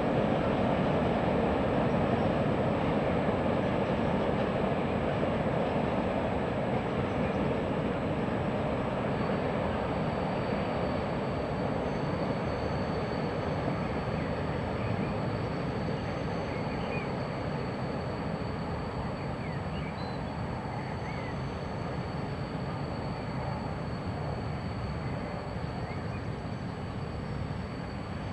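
Long freight train rolling slowly through a railway yard: a steady wheel-and-wagon rumble that slowly fades. A thin, steady high whine comes in about a third of the way through.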